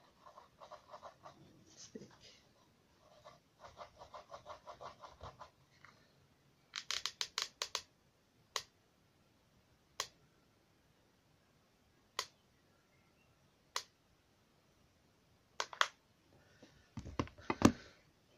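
A handheld hot glue gun being worked: runs of quick ticking from its trigger feed, then a quick cluster of sharp clicks and single clicks every second or two. A few lower knocks come near the end as it is handled and set down.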